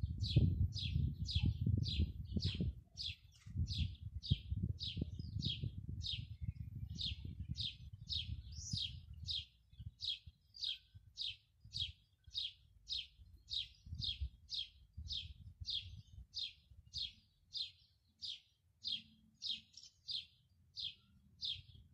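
A small bird chirping over and over, short high chirps at a steady pace of about two a second, over a low uneven rumble that mostly fades after about nine seconds.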